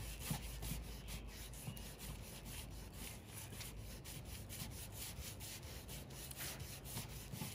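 Sandpaper on a small hand sanding block rubbing back and forth over primer on a car door, in quick faint strokes about four or five a second. The primer layers are being feathered out around a filled door ding.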